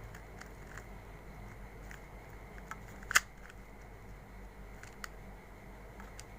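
Plastic 2x2 puzzle cube being turned by hand: scattered light clicks of the layers, with one louder snap about three seconds in.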